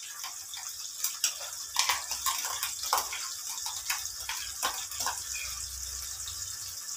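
Tomato and roasted-onion paste sizzling as it fries in hot oil in a kadhai, a steady hiss with irregular crackles and pops.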